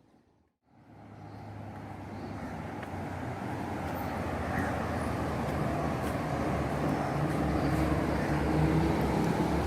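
An engine running with a steady low hum amid outdoor traffic noise, fading in after a brief dropout near the start and growing steadily louder.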